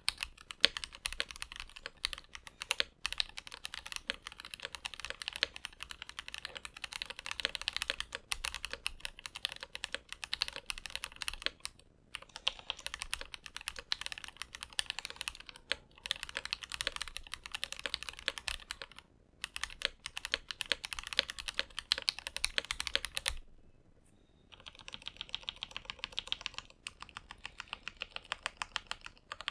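Steady fast typing on a Rama U80-A mechanical keyboard with lubed Mode Reflex switches, a brass plate and GMK ABS keycaps: a dense run of keystroke clacks. The typing is broken by a few short breaks and a pause of about a second about three-quarters through.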